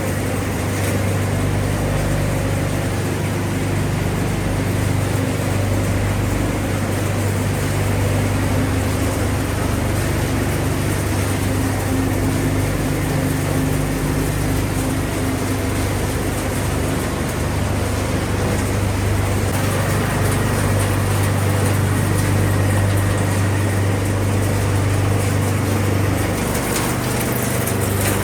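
Appliance recycling-line machinery running steadily: a constant low hum under a continuous wash of mechanical noise.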